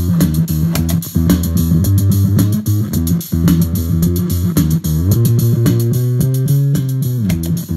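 Looped electric bass riff through a gated bass fuzz with drive fully up, giving a synth-like fuzz tone. The Chunk Systems Brown Dog and the Bremerklang Brown Fuzz are switched in turn and sound practically the same.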